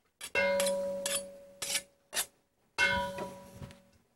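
A metal utensil scraping and knocking in a stainless steel mixing bowl as garlic and anchovies are mashed around its sides. Twice the bowl is struck and rings out with a clear metallic tone that slowly fades, between shorter scrapes and clicks.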